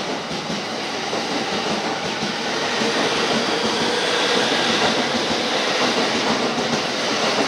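JR East E231 series commuter train running past close by along the platform: a steady rush of wheels on rail and running gear. It grows a little louder about three seconds in, with a steady hum underneath.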